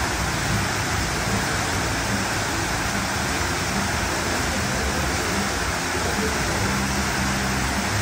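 Man-made waterfall pouring over rockwork into a pool: a steady, unbroken rush of falling water.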